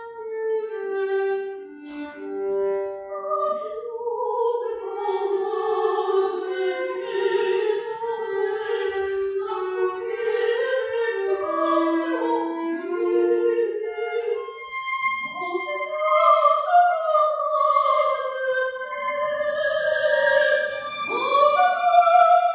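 Classical music: a slow melodic line of long held notes, operatic in character.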